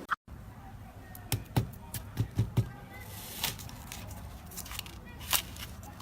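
Slime being squeezed and worked by hand, giving a series of sticky clicks and pops, several close together in the first half.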